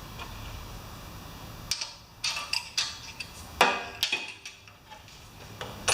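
Irregular metallic clicks and clacks from parts and tools being handled on an opened-up small generator engine, about a dozen over three seconds, with one louder clack a little past halfway.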